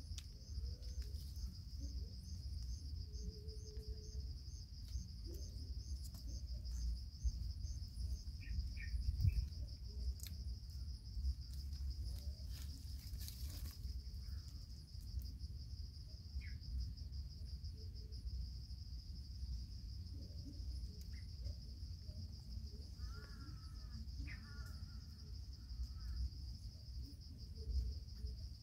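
Steady high-pitched insect chorus, pulsing about three times a second at first, over a low steady rumble. A few short chirps come and go.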